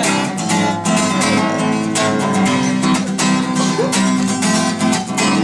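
Acoustic guitar strummed in a steady rhythm, the instrumental intro of a song before the vocals come in.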